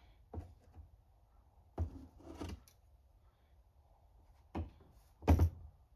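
Small parts being picked up and set down on a workbench during a carburetor rebuild: a few short separate knocks and clicks, the loudest near the end.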